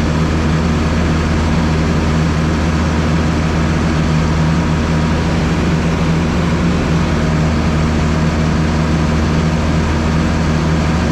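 Tractor engine running steadily under load with a constant low drone, heard from inside the cab.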